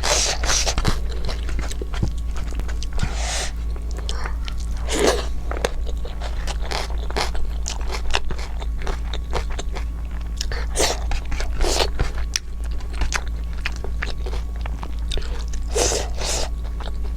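Close-miked chewing and eating sounds of a person eating a rice meal: irregular wet mouth clicks, smacks and crunches, over a steady low hum.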